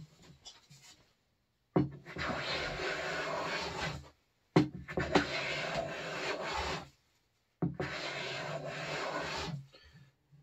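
Hand plane taking three long shaving strokes along a panel's glued-on wooden edging, trimming it flush with the thin cherry-veneer plywood. Each stroke starts with a sharp knock as the plane lands and then runs as a steady scraping rasp for about two seconds.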